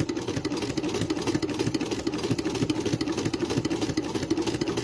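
Vintage sewing machine stitching fast and without pause, a rapid even mechanical rattle.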